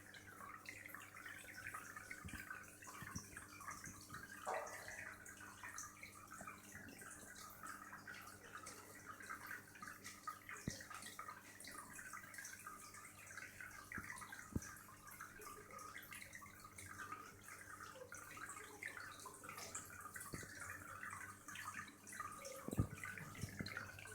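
Faint running water in a home aquarium: a continuous bubbling and trickling with many small drip-like ticks over a steady low hum, and a few faint clicks.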